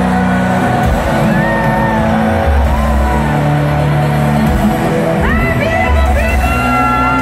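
Loud live pop-rock music through a stadium sound system, heard from the stands, with heavy bass and the crowd cheering and whooping over it.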